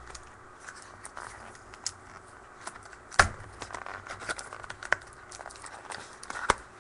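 Plastic trading-card pack wrapper crinkling and tearing as packs are cut open with scissors and the cards handled. Scattered sharp clicks run throughout, with one louder snap about three seconds in.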